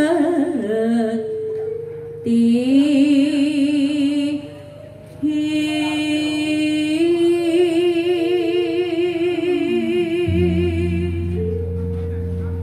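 A woman singing through a microphone and PA with a wide vibrato, over electronic keyboard accompaniment. About ten seconds in the voice stops and a steady low keyboard chord holds on.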